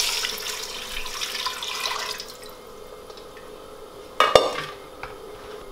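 Water poured from a small saucepan into a stainless steel stockpot of cut potatoes, splashing for about two seconds and tapering off. A single sharp knock a little past four seconds in.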